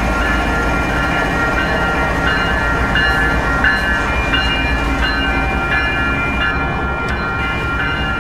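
Union Pacific diesel freight locomotive passing at close range, its engine rumbling steadily. From about two seconds in, a bell rings in a steady rhythm, about one and a half strikes a second.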